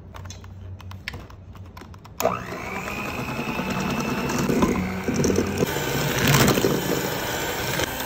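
Electric hand mixer switched on about two seconds in, after a few faint clicks, its beaters running steadily through cake batter in a stainless steel bowl.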